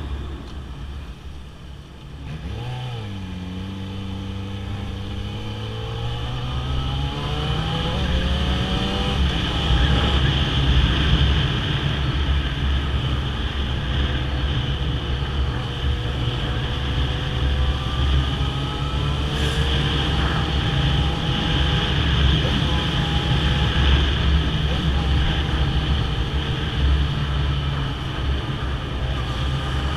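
Yamaha XJ6's 600 cc inline-four engine under way: its pitch dips briefly, climbs steadily for several seconds as the bike accelerates, then holds a steady cruise under a loud low rush of wind.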